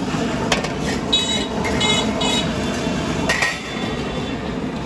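Busy street-stall noise: a steady low roar of a gas burner and traffic. Two sharp metal clanks of the iron pan and paddle come about half a second in and past the three-second mark, and there are a few short high toots in the first half.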